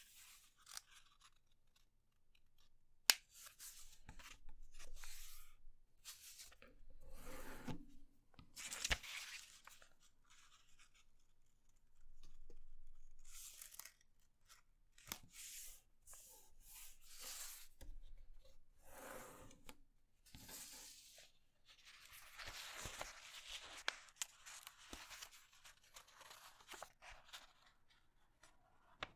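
A sheet of graph paper being folded and creased by hand: irregular bursts of rustling and crinkling as corners are turned down and the folds pressed flat. There is one sharp tick about three seconds in.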